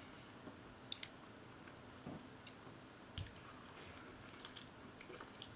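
Faint sounds of a person biting into and chewing a large soft burrito, with a few soft clicks of mouth and tortilla.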